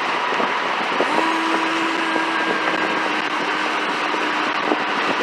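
Steady road and engine noise of a vehicle on the move, with a faint steady hum that comes in about a second in and stops near the end.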